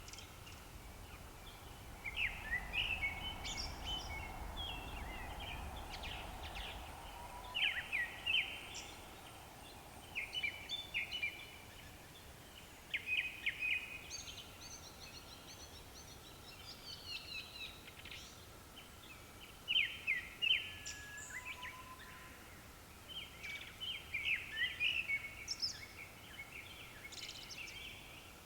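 Japanese thrush singing: bursts of short, varied whistled phrases, each a quick run of notes, repeated every second or two with brief pauses between.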